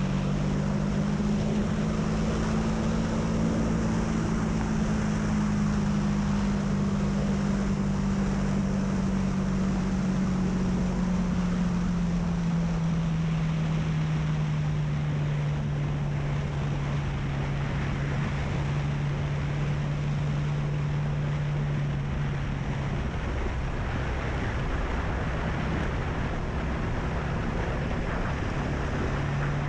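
Honda CB300F's single-cylinder engine running under way, with wind rushing over the microphone. The engine note falls slowly over about twenty seconds, drops away for a few seconds near the end, then comes back.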